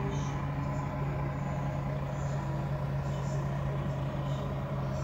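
An engine idling steadily: an even low hum that holds at one pitch.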